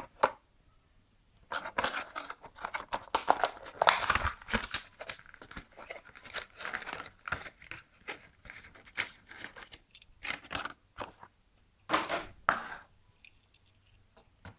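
Clear plastic blister pack of a Hot Wheels Premium die-cast car being torn and crinkled open by hand from its cardboard backing: a dense run of crackling and tearing starting about a second and a half in, then one short louder burst near the end.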